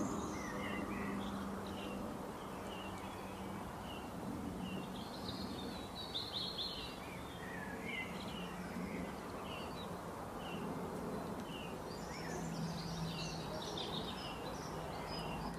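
Many small birds chirping and twittering in short, scattered calls over a steady low hum and background noise.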